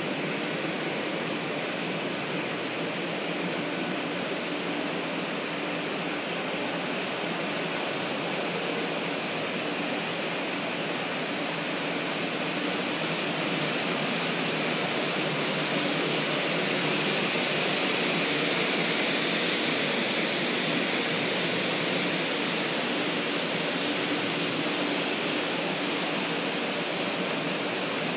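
Steady rushing hiss with a faint hum from a stationary 500-series Shinkansen standing at the platform: the running noise of its on-board fans and equipment while it waits. It grows a little louder about halfway through.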